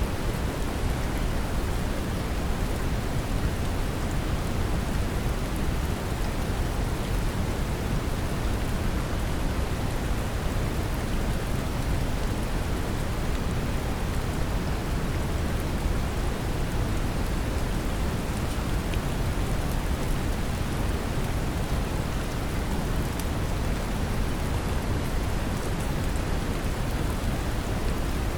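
Steady brown noise, a deep even rumble, mixed with a gentle rain recording whose drops patter faintly on top; unchanging throughout.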